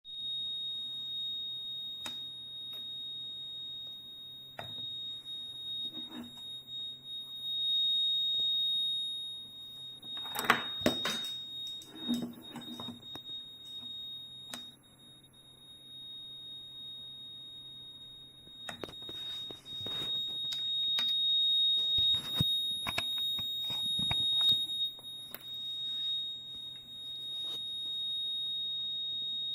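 YR1035+ battery tester's buzzer giving a steady, high-pitched beep that does not stop, a malfunction. Clicks and knocks from the unit being handled come through in two spells, and the tone drops away for a few seconds in the middle.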